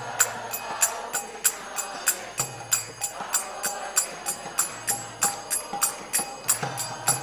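Instrumental interlude of a devotional kirtan: small hand cymbals (kartals) struck in a steady rhythm, about four strokes a second, over soft held melody notes.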